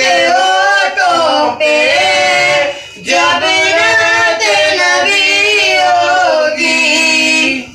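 A boy singing a naat, an Urdu devotional song in praise of the Prophet, solo and unaccompanied in long, drawn-out melodic lines. There is a brief breath-break about three seconds in, and the voice stops just before the end.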